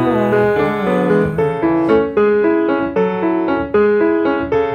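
Piano song, an instrumental stretch between sung lines: the piano plays a steady, repeating pattern of chords. A sung note trails off within the first second or so.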